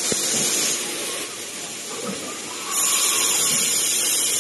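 A loud, steady hiss, strongest in two stretches: the first moment, and again from about two and a half seconds in to the end.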